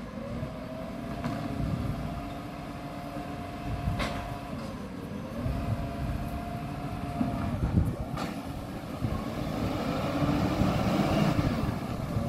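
Side-loading garbage truck at work: its diesel engine runs and revs with a whine that holds, dips and rises again as it lifts and empties wheelie bins. Two sharp knocks come about four and eight seconds in.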